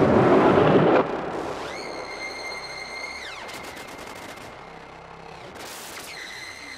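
Electronic dance music: a loud, dense, distorted passage cuts off about a second in. It leaves quieter synth tones that glide up, hold one high pitch and glide back down, with a short buzzing stretch and a brief burst of hiss.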